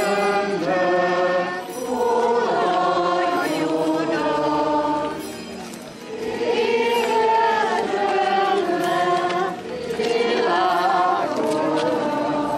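A group of people singing a hymn together in slow, held notes, in phrases of a few seconds with short pauses between them.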